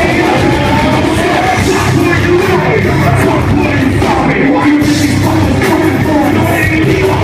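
Live concert music played loud, with a heavy rock-style backing and a vocalist singing and yelling over it.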